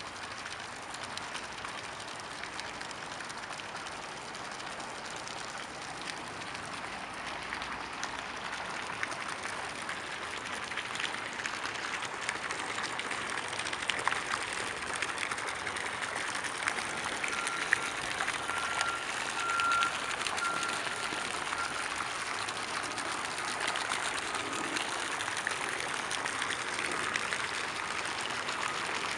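Steady outdoor background hiss, with a faint high tone pulsing on and off for a few seconds past the middle.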